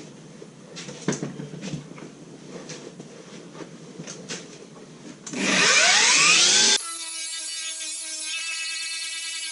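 Faint clicks and rustles of handling, then about five seconds in a cordless angle grinder runs loud for about a second and a half with rising whines, cut off suddenly by background music with held notes.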